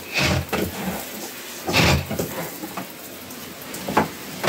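Knapsack pressure sprayer spraying insecticide for bedbugs onto wooden bed slats: a steady hiss with two louder bursts about a second and a half apart, and a sharp click near the end.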